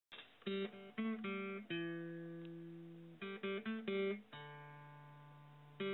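Background music: a guitar playing groups of short plucked notes, twice letting a chord ring out and slowly fade.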